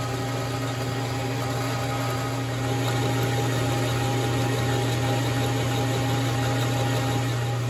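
Small metal lathe running with an end mill turning in its spindle, milling across a metal block held in a Palmgren 250 milling attachment: a steady low machine hum with cutting noise, getting a little louder about two and a half seconds in.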